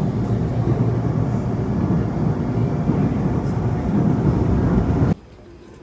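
Loud low rumbling noise with no clear tones, cut off suddenly about five seconds in and followed by a much quieter background.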